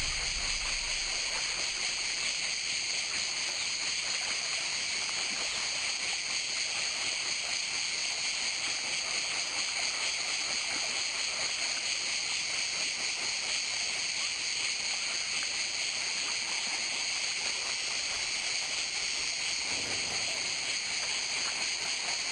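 A steady, even high-pitched hiss of outdoor ambience, unchanging in loudness throughout.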